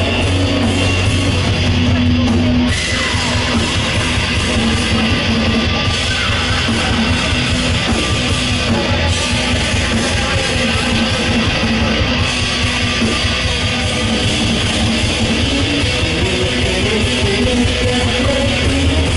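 Live rock band playing: strummed electric guitar over drums and cymbals, with the cymbals growing busier about three seconds in.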